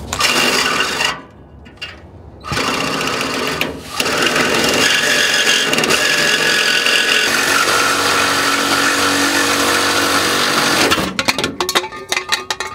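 Reciprocating saw cutting through a pickup truck's exhaust pipe. A short burst of sawing comes first, then a second about two seconds later, then a long steady cut of about seven seconds that breaks into a few stuttering strokes near the end.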